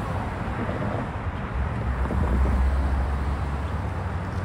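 Road traffic: cars driving past on the road, with a low rumble that swells about two seconds in.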